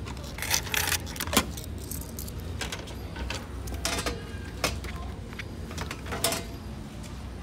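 Coins clinking in a vending machine's coin-return cup as change is picked out, followed by several separate clacks of the dispensing bin's flap and a can being taken out.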